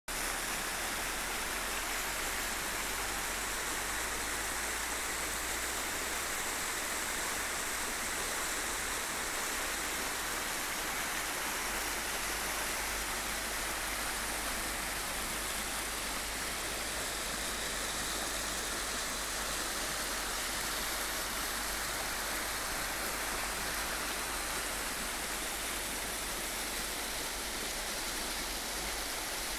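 Shallow river water rushing and splashing over stony riffles, a steady even rush with no breaks.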